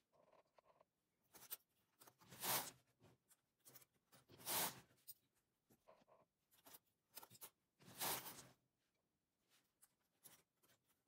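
Hands working the needles of a 6 mm midgauge knitting machine: three brief scraping swishes along the needle bed, with scattered small clicks of metal needles and hooks.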